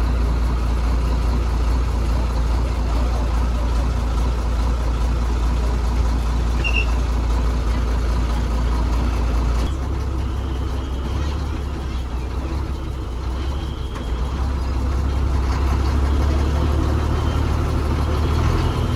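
Diesel engine of a TNSTC government bus running under way, a steady low rumble. The engine note shifts about halfway through, dips, then builds again near the end.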